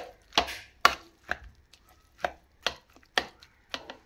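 Metal spoon knocking against the bottom of a bowl, about two sharp knocks a second, as it chops and mashes boiled potatoes with fried onions and spices into samosa filling.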